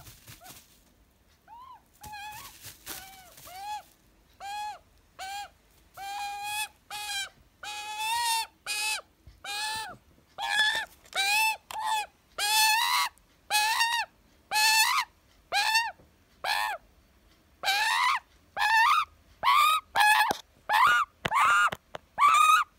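Young Australian magpie giving a long series of short, harsh begging squawks, about two a second. The calls start about two seconds in and grow louder and closer together.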